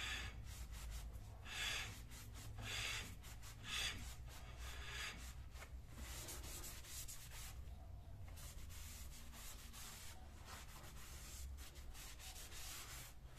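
A solvent-dampened cloth rubbing over the faces of a new front brake disc, wiping off its protective anti-rust oil. There are a few louder strokes about a second apart over the first four seconds, then softer steady wiping.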